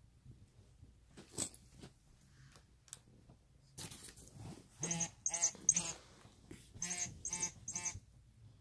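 Plush Jitter Mouse cat toy giving short, high-pitched electronic squeaks in quick runs of three, twice about five seconds in. Soft rustles and knocks come earlier as the cat bats at the toy on the bedding.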